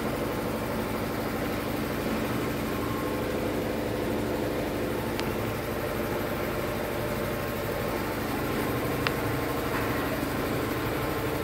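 An engine idling steadily, with a constant, even hum.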